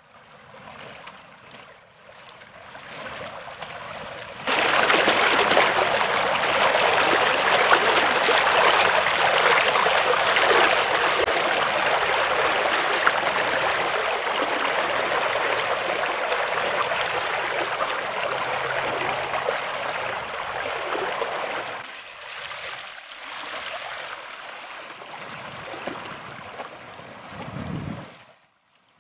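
Muddy stormwater runoff rushing through a channel across a lawn, a steady noise of fast-moving water. It jumps much louder about four seconds in and drops back for the last few seconds.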